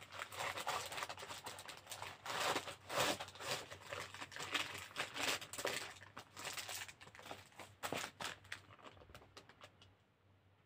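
Cross-stitch kit packaging crinkling and rustling as it is handled and turned over, in an irregular run of rustles that dies away near the end.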